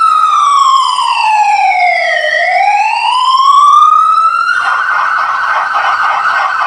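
A siren wailing, its pitch falling slowly and rising again. About four and a half seconds in it switches to a fast warbling yelp.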